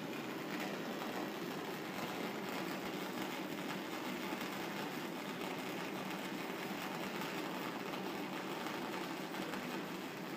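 MIG/MAG welding arc at the Fanuc Arcmate 120iL robot's torch, a steady crackling hiss made of dense fine clicks.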